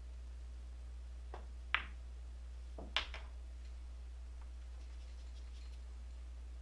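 A pool shot: a sharp click as the cue tip strikes the cue ball, then about a second and a quarter later a second sharp click as the cue ball hits an object ball, followed by a few lighter ball knocks.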